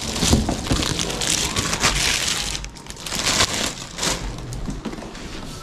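Packaging crinkling and rustling in uneven bursts as the parts of a new vacuum cleaner are unpacked from their box.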